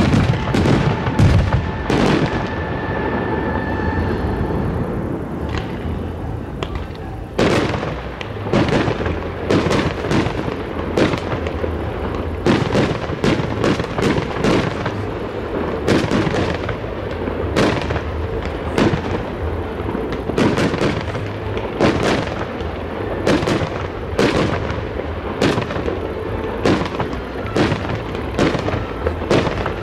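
Aerial firework shells bursting in a long series of sharp bangs, each followed by a rolling rumble. From about seven seconds in, the bangs come thick and fast, about one or two a second.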